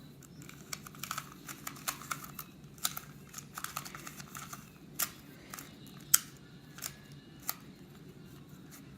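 A 2x2 Rubik's cube being scrambled by hand: its plastic layers turning in quick, irregular clicks and clacks, with a few sharper snaps.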